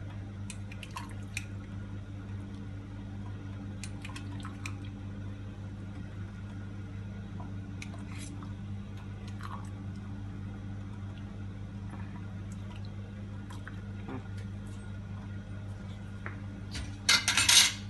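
Steady low hum with scattered faint drips and light ticks, and a brief louder noisy burst near the end.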